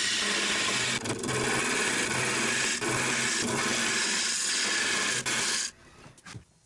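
Turning tool cutting into a spinning catalpa wood blank on a lathe: a loud, steady shearing hiss with a few brief breaks as the tool lifts. It stops suddenly about a second before the end when the tool is withdrawn.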